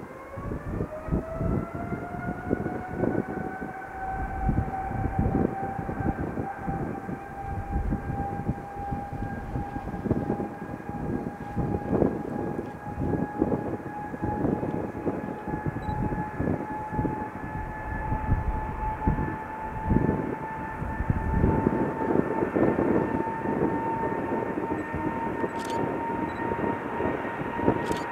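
Boeing 777F freighter's GE90 turbofan engines spooling up for takeoff: a whine that rises in pitch over the first three seconds, then holds steady over a low, gusty rumble.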